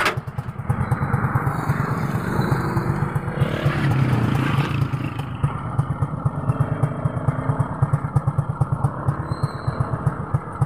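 Motorcycle engine of a passenger tricycle idling, with a fast, even pulsing. One sharp knock comes right at the start.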